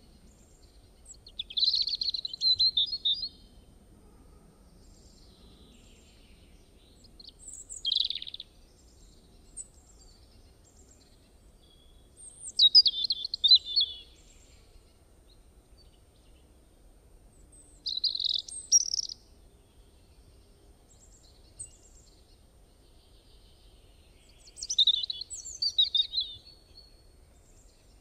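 A songbird singing short, quick warbling phrases, five of them spaced about five or six seconds apart, over faint low background noise.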